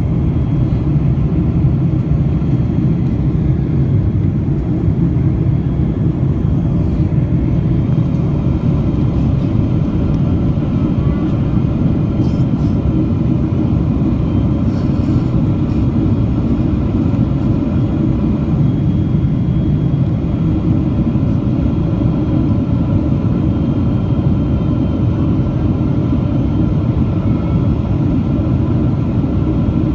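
Steady cabin noise of a Boeing 777-300 in flight, heard from a window seat over the wing: a deep, even rumble of the turbofan engines and airflow, with a few faint steady whine tones above it.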